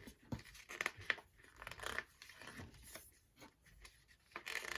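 Light rustling and crinkling of a K-pop album's paper and plastic contents being handled by hand, with scattered small clicks and a louder rustle near the end.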